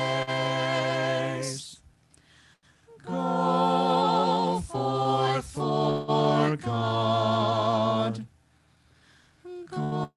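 Small mixed vocal group of two men and two women singing a hymn a cappella in harmony, in long held notes, with a short pause about two seconds in and another near the end before the next phrase.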